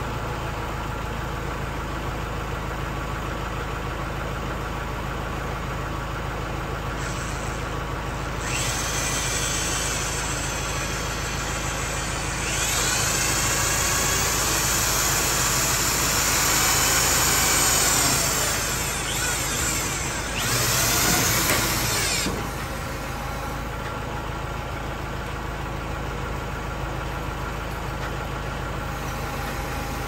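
Tractor engine idling steadily under three runs of a power drill driving wood-to-metal screws into pine boards, about 8 to 12 seconds in, 12 to 18 seconds in and 20 to 22 seconds in, the drill's motor whining up in pitch as it spins.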